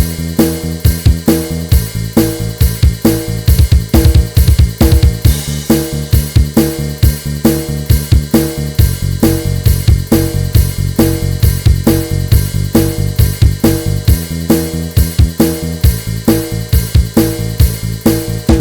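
Instrumental backing track with the guitar removed: a drum kit keeping a steady beat with bass underneath.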